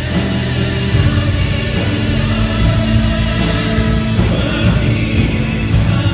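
Live Christian song: a male soloist singing through a microphone over keyboard accompaniment, with backing singers joining in.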